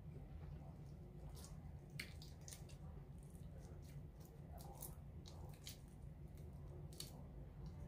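Faint wet clicks and squishes of boiled shrimp being peeled apart by hand, scattered irregularly over a steady low hum.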